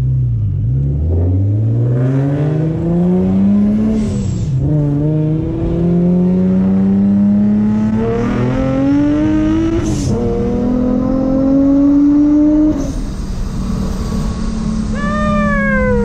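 Supercharged Infiniti G35's V6 accelerating hard through several gears, the pitch climbing in each gear and dropping at each shift, then settling into a steady cruise near the end.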